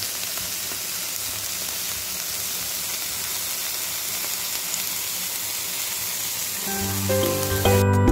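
Skewered marinated meat kebabs sizzling in oil on a flat griddle over a low flame, a steady hiss. Music with a strong beat comes in about seven seconds in.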